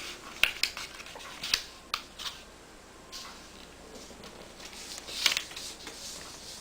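Copy paper being folded and creased by hand: crisp crackles and rustles of the sheet, with a few sharper snaps as the fold is pressed down.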